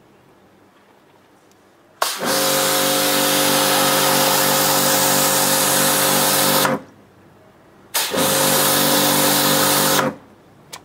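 Pressure washer spraying a fish on a wooden cutting board to blast off its scales: a loud hiss of the water jet over a steady pump-motor hum, in two bursts that start and stop abruptly with the trigger, the first about four and a half seconds long, the second about two.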